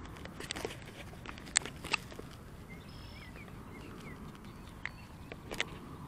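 Steady outdoor background noise with a few sharp, irregularly spaced clicks and scuffs, and faint bird chirps about halfway through.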